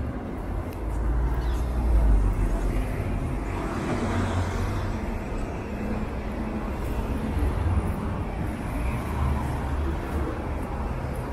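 Steady city road traffic: car engines and tyres passing on a busy street, with a deep, continuous low hum and small swells as vehicles go by.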